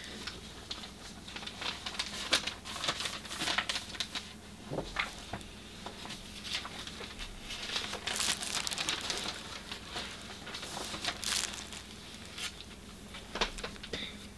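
Paper rustling and crinkling on and off as calligraphy sheets are picked up and moved on the table, with light handling taps.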